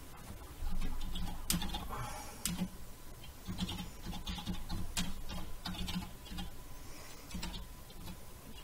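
Typing on a computer keyboard, with sharp key clicks scattered through, under a low voice humming along on and off.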